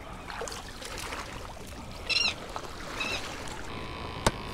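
Water washing against jetty rocks, with two short high bird calls about two and three seconds in, then a single sharp click near the end as the lid of a soft cooler bag is opened.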